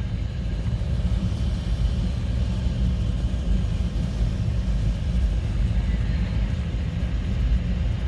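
A motor vehicle's engine running with a steady low rumble, as heard from in or beside the vehicle.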